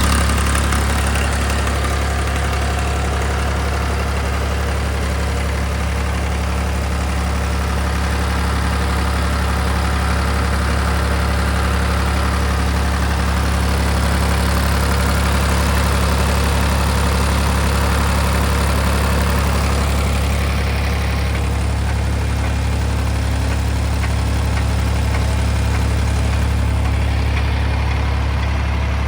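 Diesel engine of a JCB backhoe loader running at a steady speed: an unbroken low hum with no revving.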